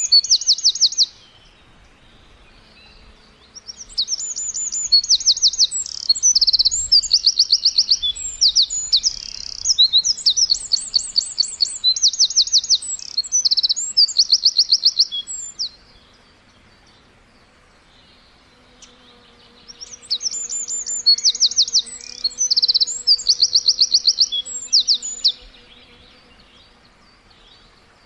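A songbird singing high, fast trills of rapidly repeated notes mixed with short chirps, in three bouts: a brief one at the start, a long one from about four seconds in, and another after a pause of several seconds.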